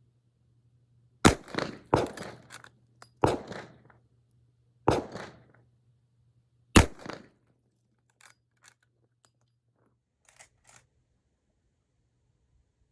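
Five shots from a Rossi R92 .45 Colt lever-action rifle, fired over about five and a half seconds with each shot echoing briefly, followed by a few faint light clicks.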